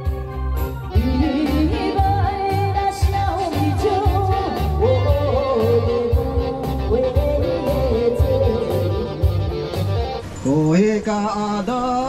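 Song with singing over a steady beat. About ten seconds in the beat drops out and a single voice chants on, sliding up in pitch.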